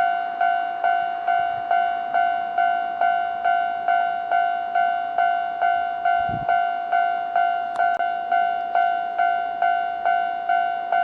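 Japanese level-crossing warning alarm ringing with its electronic 'kan-kan' bell, a little over two strikes a second, each a clear ringing tone that fades before the next. This signals that a train is approaching the crossing. A brief low thump comes about six seconds in.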